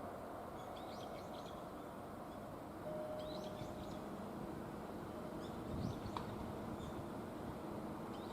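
Small birds chirping in short bursts every couple of seconds over a steady, low background hum.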